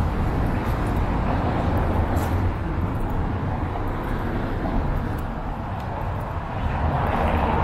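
City street traffic: a steady wash of engine and tyre noise, with one vehicle passing more loudly near the end.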